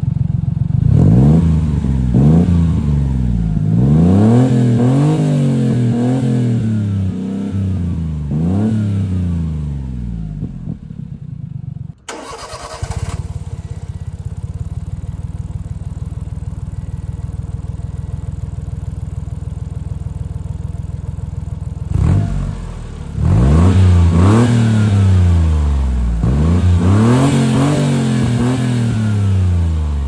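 Honda Acty kei truck's 660 cc three-cylinder engine exhaling through an aftermarket Giga N1 stainless steel exhaust. It is blipped in a series of quick revs, rising and falling about six times. After a cut, with the exhaust's silencer insert fitted, it idles steadily for about ten seconds and is then blipped about four more times.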